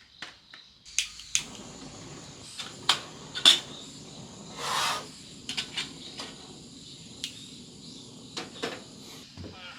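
Scattered sharp clicks and knocks of things being handled, with one short rush of noise about halfway through, over a steady high chirring of insects.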